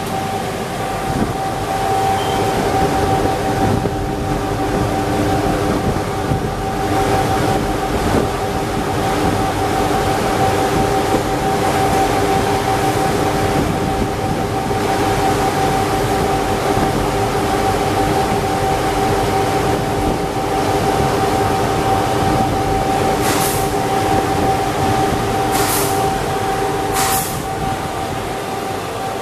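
Steady machine hum and rushing air from a sweating guarded hotplate's climate chamber fans and cooling unit, with a steady whine over the noise. Three brief sharp noises near the end.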